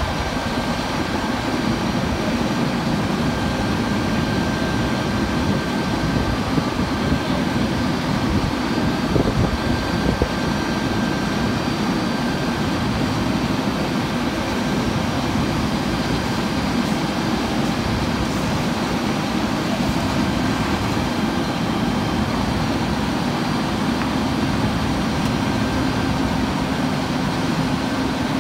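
Fire apparatus engines running steadily close by, a continuous mechanical hum with a faint, thin steady high tone over it.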